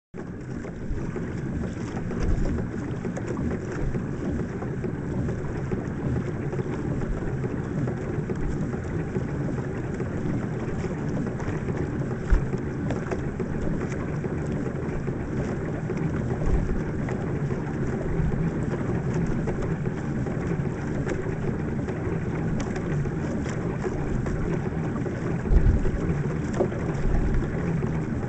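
Pedal boat under way: steady rushing of wind on the microphone and water along the hull, with a few low thumps.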